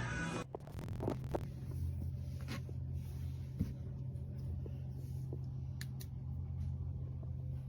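Small electric water-fountain pump humming steadily, with a few light clicks and taps, the loudest a cluster of them about a second in.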